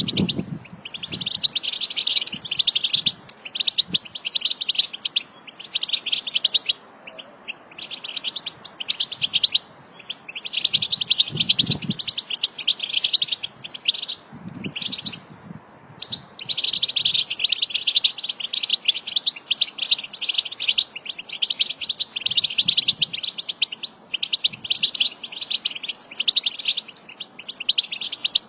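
European goldfinch song: rapid, tinkling twittering phrases lasting a few seconds each, broken by short pauses.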